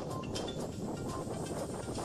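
Background music with a light recurring beat, over an even rushing noise.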